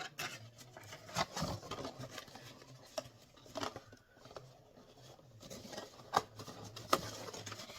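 Hands working a cardboard ornament box and its packaging: scattered rustles, rubs and light clicks, the sharpest about a second and a half, three and a half, six and seven seconds in.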